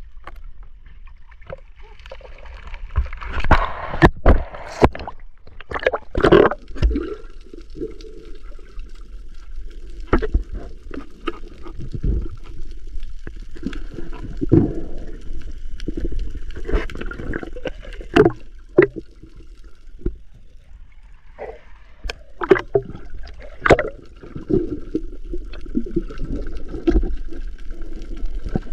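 Muffled water noise picked up by a camera in the sea, partly underwater: sloshing and gurgling, broken by many irregular knocks and splashes.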